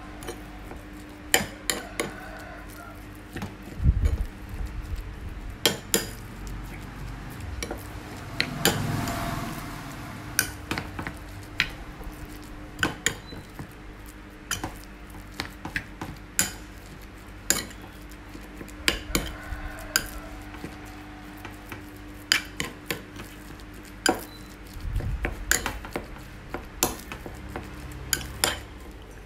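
Metal spoon stirring ground meat in a ceramic bowl, knocking and clinking against the bowl's rim and sides in irregular sharp clicks every second or two.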